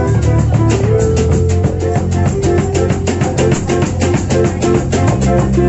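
Music with guitar over a steady beat and a strong bass line.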